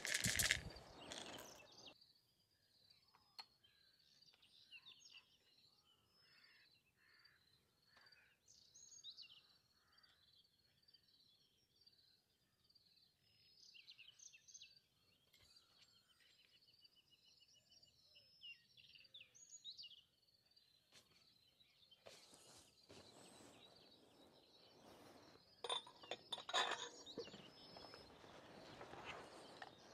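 Faint wild birdsong: many small birds chirping and trilling. There is a short loud burst of noise at the start, and irregular louder noise returns for the last several seconds.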